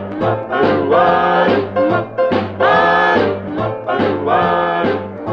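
Vintage vocal-group rhythm-and-blues record playing: sustained harmony chords repeating in a swing rhythm over a steady bass line.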